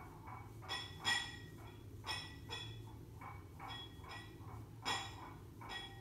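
Graphite pencil (a Staedtler Mars Lumograph 4B) scratching on drawing paper in short, quick strokes, about two to three a second, as fine detail is shaded in, with two louder strokes about a second in and near the end. A steady low hum sits underneath.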